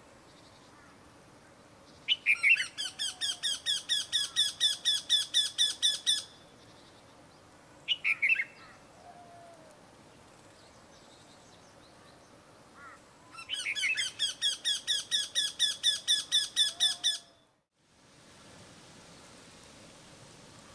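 Eurasian wryneck calling: two runs of evenly repeated notes, about three or four a second and around four seconds each, with a short burst of notes between them.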